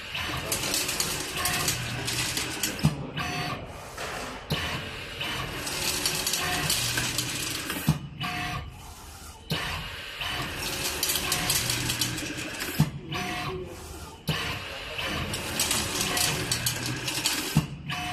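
Automatic nut-tightening machine cycling: the servo-motor screwdriver spindle and feeder run in about four stretches of whirring, each a few seconds long, separated by short pauses and sharp mechanical clicks.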